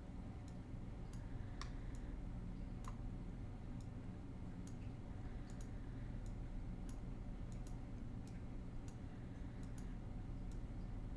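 Computer mouse clicking at an irregular pace, a few clicks a second, over a steady low hum.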